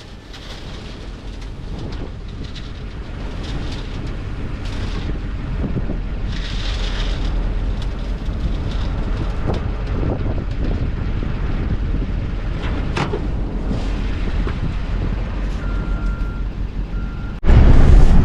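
A heavy engine running, a low rumble that grows steadily louder, with two short high beeps near the end. Just before the end it jumps suddenly to a much louder, fuller rumble.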